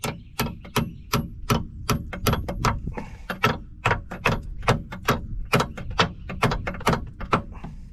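Hammer blows ringing on a steel excavator track master pin, about three strikes a second, driving the new chamfered pin through the track link's bushing until it goes in.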